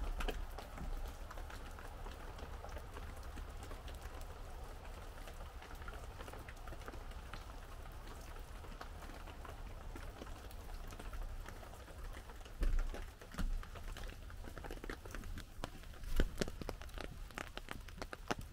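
Rain falling with drops tapping on an umbrella overhead, a steady patter of scattered taps that grows denser in the last few seconds. A few dull low thumps come in the second half.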